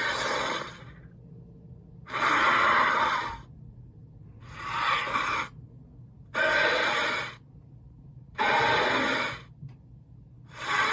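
Animated wolf character's heavy, hissing breaths, about one every two seconds, each lasting around a second.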